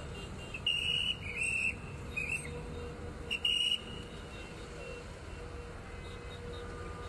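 Whistles blown in about four short, shrill blasts in the first four seconds, over a steady low rumble of outdoor street noise.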